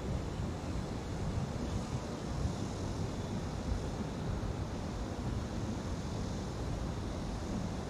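Steady low rumbling background noise with no distinct events, wavering a little in loudness.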